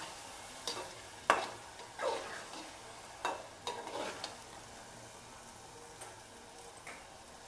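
A metal ladle stirring a thick vegetable curry in a metal pot, scraping and knocking against the pot a handful of times in the first four seconds. Under it the curry sizzles faintly and steadily as it fries.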